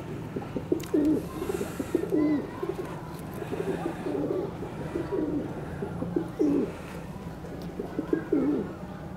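Domestic pigeons cooing, a low call repeated about once a second.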